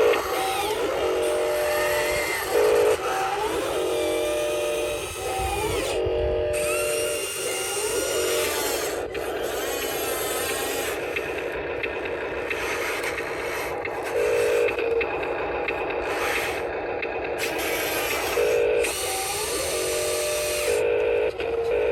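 Small electric motors and plastic gearboxes of RC construction models running, a whine that rises and falls in pitch as they speed up and slow down, with short repeated tone pulses.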